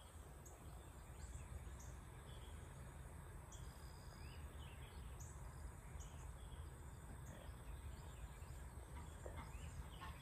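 Quiet outdoor ambience: a faint steady insect drone with scattered soft bird chirps over a low rumble.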